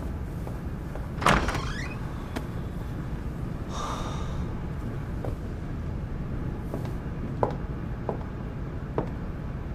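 A door sliding about a second in, then a short ringing tone and a few light clicks over a low steady hum.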